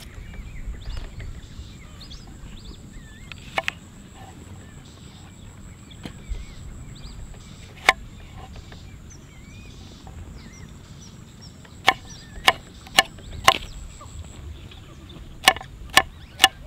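A knife chopping vegetables on a board in sharp knocks: a few single strokes, then short runs of about two a second in the second half. Birds chirp in the background.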